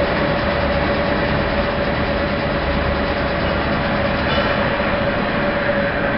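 Rope-making machine running steadily, twisting strands into rope: an even mechanical whir with a constant whine running through it.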